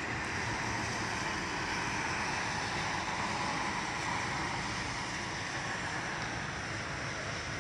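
Steady hiss of traffic on a rain-wet road, tyres swishing on the wet asphalt.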